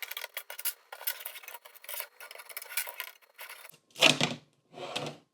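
Small hard plastic LEGO plates clicking and scraping as they are slowly worked apart and handled, with many quick irregular ticks; near the end come two louder sounds.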